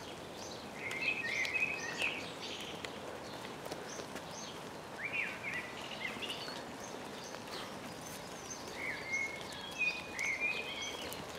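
Small songbirds chirping in short phrases, about a second in, around five seconds in and again near the end, over a steady soft hiss of light rain.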